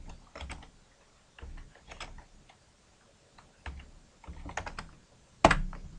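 Computer keyboard typing in short bursts of keystrokes with pauses between them, and one louder key strike near the end.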